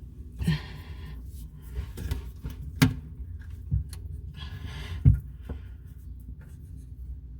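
Faucet fittings being handled under a bathroom sink: four sharp knocks spread through, the loudest about five seconds in, with rustling and rubbing between them over a low steady hum.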